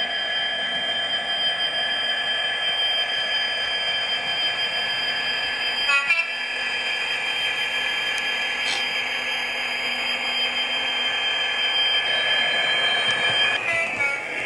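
Hornby Class 66 OO-gauge model locomotive with a TTS sound decoder running by: the decoder's Class 66 diesel engine sound from the model's small speaker, with a steady high whine over a hiss. A brief clatter comes about six seconds in, and the sound changes near the end.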